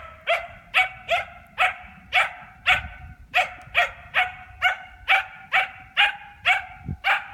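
A dog barking over and over in a steady rhythm, about two barks a second with no let-up.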